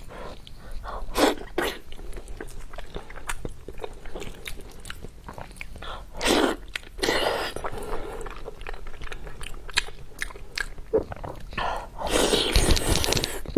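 A person eating close to the microphone: biting and chewing with many short sharp clicks and smacks, and a few longer, wetter noisy bursts, the longest near the end.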